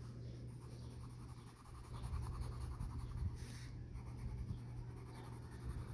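Faber-Castell Ecolápis Neon coloured pencil shading on paper, a run of scratchy back-and-forth strokes that get louder from about two seconds in.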